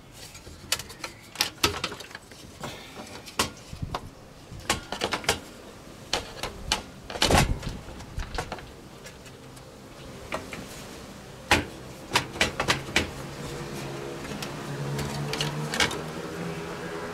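Irregular clicks and knocks of computer case parts being handled and fitted. About thirteen seconds in, a steady hum begins, its low tone rising slightly and then holding: the PC's cooling fan starting up and running.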